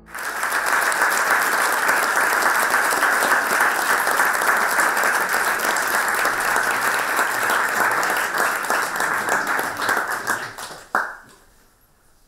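Audience applauding steadily. The applause dies away a little after ten seconds in, and a single sharp knock follows near the end.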